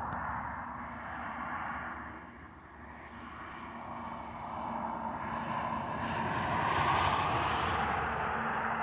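A Union Pacific coal train's diesel locomotives running, with a steady low hum under a broad roar. The sound dips about two and a half seconds in and grows louder from about five seconds in.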